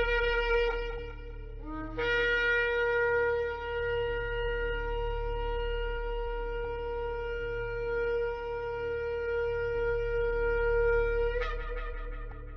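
Shofar blown: a blast ends about a second and a half in, then one long steady blast is held for about nine seconds and breaks upward in pitch at its end before ringing away.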